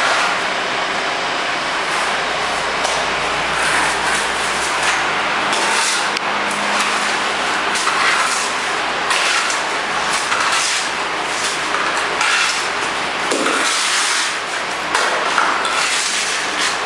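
Wet mortar being scraped off the plastering plate of an automatic wall-rendering machine, repeated rasping strokes about once a second over a steady background noise with a faint hum.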